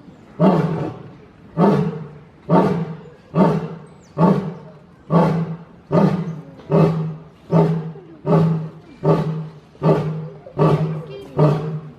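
Lion roaring: the grunting run of a roaring bout, about fourteen short, low grunts in steady succession, roughly one every three-quarters of a second. Each grunt starts sharply and fades.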